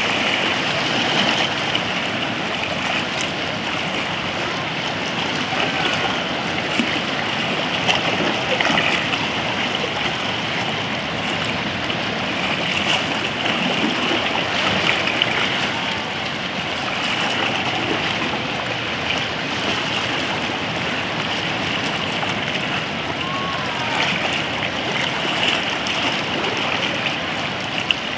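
Small sea waves washing and lapping around rocks in shallow water, a steady rush with a few brief splashes.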